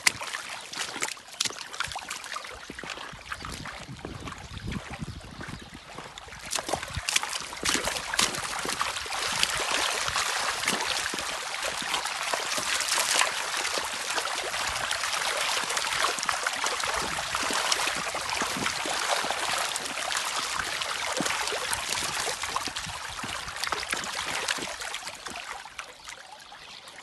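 Shallow water trickling and babbling over stones in a low-flowing riverbed. It grows louder about seven seconds in and drops off near the end.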